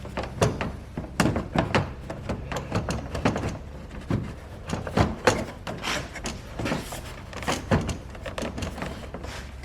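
Irregular clicks, knocks and scrapes of hard plastic as a car's headlight housing is worked and fiddled into place against the trim, its locating tongues being seated.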